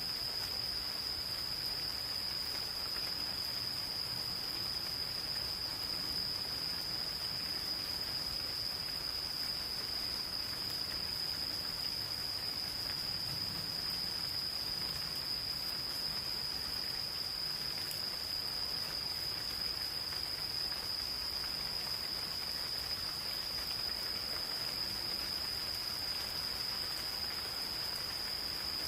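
Gentle rain falling in a forest, a soft steady patter, over a continuous unbroken high-pitched trill of insects singing.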